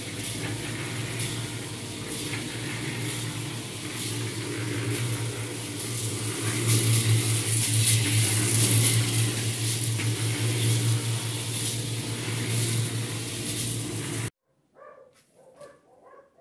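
A machine running steadily with a low hum and a hiss on top that swells and fades in a slow, uneven rhythm. It cuts off suddenly near the end.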